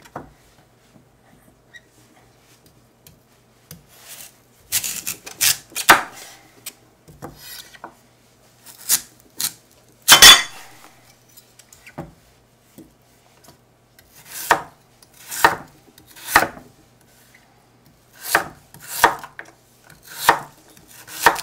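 Kitchen knife slicing through a large Korean radish and striking a wooden cutting board. After a few quiet seconds it comes in separate sharp chops, settling into about one chop a second in the second half.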